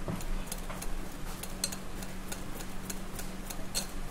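Wire whisk beating thick cake batter in a glass bowl, its wires ticking against the glass in sharp clicks about four times a second.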